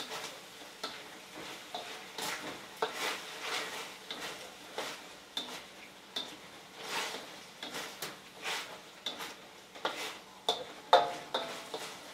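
Spatula scraping and knocking against a steel wok as chicken is stirred, in irregular strokes about twice a second, with a sharper knock a little before the end. The food sizzles faintly underneath.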